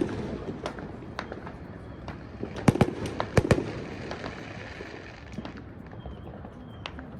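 Fireworks and firecrackers going off: about a dozen irregular sharp cracks and pops, the loudest cluster coming about three seconds in.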